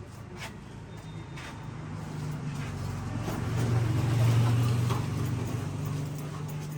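A passing motor vehicle's engine drone, growing louder to its peak about four seconds in and then fading.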